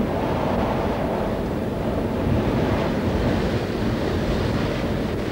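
Stormy sea: waves breaking and strong wind blowing, a steady rush of surf and wind.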